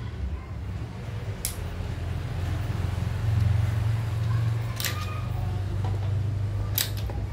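Sharp clicks from a screwdriver and the small plastic and metal parts of a Lancer soda-fountain valve being taken apart, three of them, over a steady low hum.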